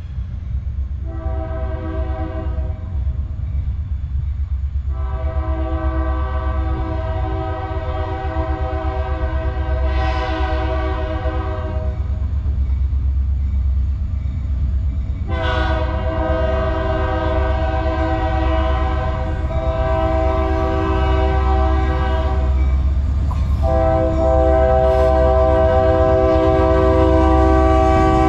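Diesel freight locomotives approaching, their engine rumble growing steadily louder. Over it the lead locomotive's air horn sounds four times: one short blast, then three long ones.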